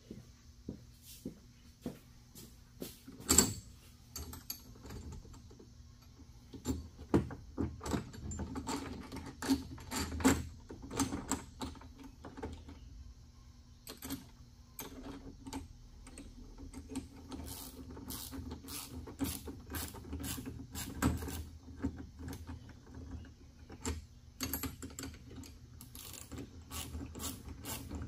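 Hand-tool work on metal clamp hardware: scattered clicks, taps and clinks, with one sharp knock about three seconds in and a run of regular clicks about twice a second in the second half, over a steady low hum.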